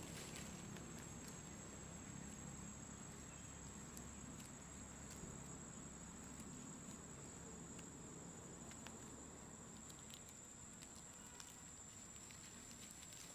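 Faint outdoor ambience: a steady high-pitched insect trill, like crickets, with scattered light ticks and rustles of dry leaves.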